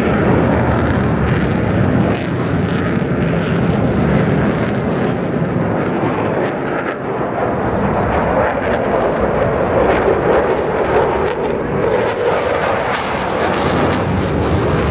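RAF Eurofighter Typhoon's twin jet engines, a loud, steady jet noise during its display pass, with occasional sharp crackles.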